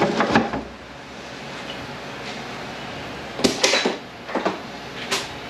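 A few scattered metal clanks and clatters of tools being handled, the loudest a little past three seconds in, over a steady background hiss.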